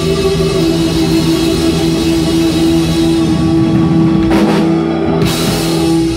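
Live rock band holding a long final chord, electric guitars and keyboard sustained over drum rolls, with two cymbal crashes near the end before the band stops together.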